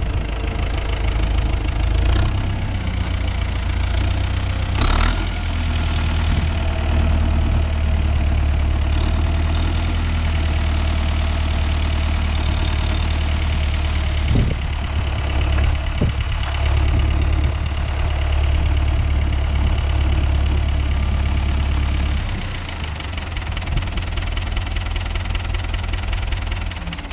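Renault 651 tractor's diesel engine running steadily with a low drone, with a few sharp knocks or clunks about five, fourteen and sixteen seconds in. The engine settles to a quieter, lower note about twenty-two seconds in.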